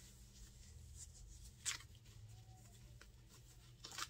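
Faint rustling of tissue-paper and plastic packaging being handled, with one short sharp crinkle a little under two seconds in.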